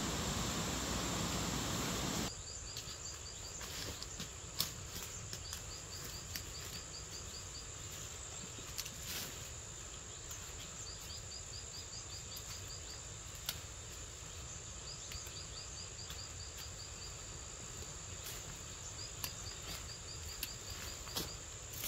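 Insects calling: short trains of rapid high ticks recurring every few seconds over a steady high-pitched drone, with scattered sharp clicks and rustles as leafy plants are picked. For the first two seconds a louder steady hiss covers everything, then cuts off abruptly.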